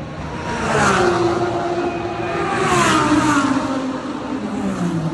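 GT3 race cars passing at speed one after another, the two loudest about two seconds apart. Each engine note falls in pitch as the car goes by.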